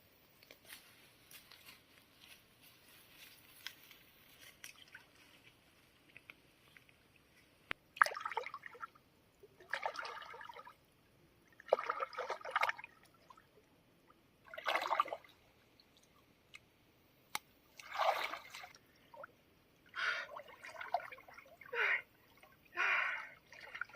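Water sloshing and splashing in repeated bursts, each about a second or two long and coming every couple of seconds, after several seconds of faint small clicks.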